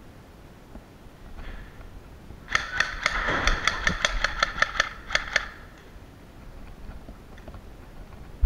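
Cyma CM030 electric Glock 18 airsoft pistol firing a rapid string of about fourteen shots in three seconds, then a single sharp click near the end.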